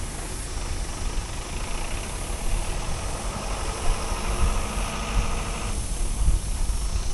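Heavy tractor truck engine running with a deep, steady rumble. A higher hiss joins about a second and a half in and cuts off suddenly near six seconds.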